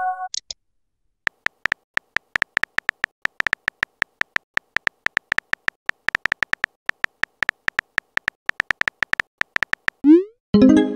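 Simulated phone-keyboard typing from a texting-story app: rapid little electronic key clicks, several a second. Near the end come a rising swoosh and a short chime as the message is sent.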